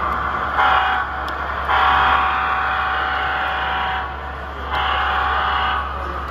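Train horn sounding three blasts, short, long and medium, each a steady chord of several notes.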